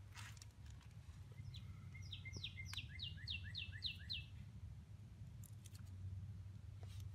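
A songbird sings one phrase of about nine quick repeated notes, each slurring downward, over about two and a half seconds. A faint low steady hum and a few light clicks sit underneath.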